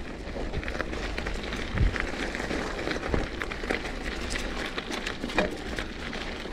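Mountain bike descending a dirt singletrack: steady tyre and riding noise over a low rumble, with many sharp knocks and clicks from the bike on the rough trail, the strongest about two, three and five and a half seconds in.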